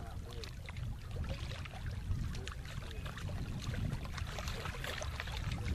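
Wind rumbling on the microphone, with small waves lapping and trickling against a rocky lakeshore.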